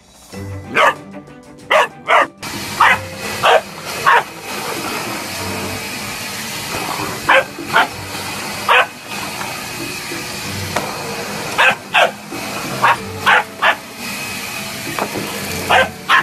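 Bullmastiff puppy barking in short, irregular single and paired barks at a running vacuum cleaner. The vacuum's steady rushing whine starts a couple of seconds in and carries on under the barks.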